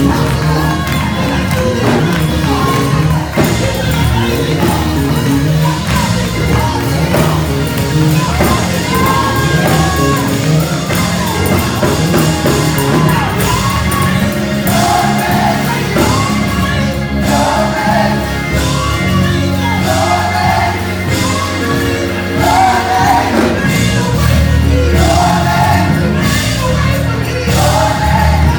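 Live gospel choir singing with band accompaniment, a steady bass and drum groove under the voices.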